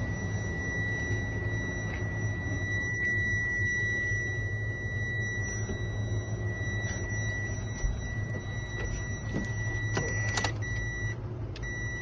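Mitsubishi Fuso Canter's 4P10 turbo diesel idling steadily, a constant low hum with a steady high-pitched whine over it that drops out briefly near the end.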